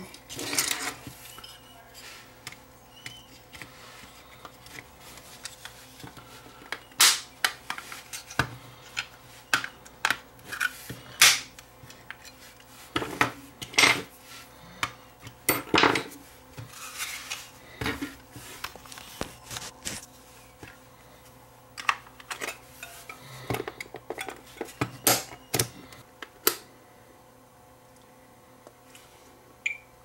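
Irregular clicks, taps and knocks of a Fluke 12 multimeter being put back together by hand, its circuit board and plastic case parts handled and fitted together. The knocks come at uneven intervals and stop a few seconds before the end.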